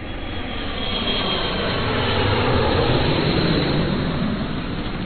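A loud rushing, rumbling noise that starts abruptly, swells over the first three seconds, then begins to ease off near the end.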